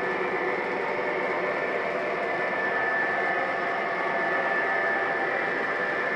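O-gauge model freight cars (tank cars and coal hoppers) rolling past on three-rail FasTrack: a steady rolling noise of metal wheels on the rails, with a thin, steady high ring.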